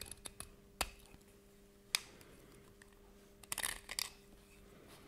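Deburring tool's blade scraping and clicking along the edges of a 3D printed plastic part: faint scattered clicks, two sharper clicks about one and two seconds in, and a short bout of scraping near four seconds. A faint steady hum sits underneath.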